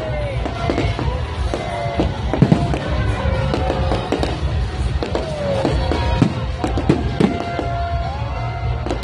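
Aerial fireworks shells bursting and crackling in a dense string of bangs, the loudest about two and a half seconds in and again near seven seconds. Music plays underneath.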